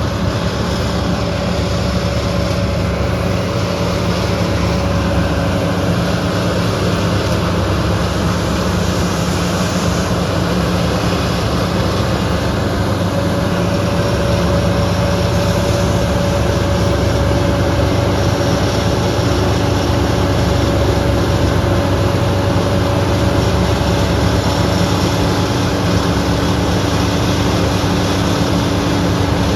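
Combine harvester running steadily while cutting soybeans: a constant engine drone with a steady higher whine from the machine.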